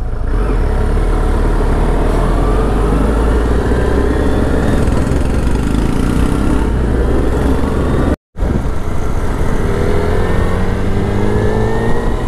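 Suzuki Hayabusa's inline-four engine running on the move, with a heavy low rumble of wind on the microphone; its pitch climbs as the bike accelerates early on and again near the end. The sound cuts out completely for a split second about eight seconds in.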